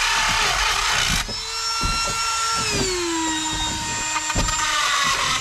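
Dremel rotary tool with a carving bit cutting through a fiberglass bulkhead: a high whine with a gritty grinding noise over it for the first second or so, then the whine drops to a lower steady pitch about halfway through.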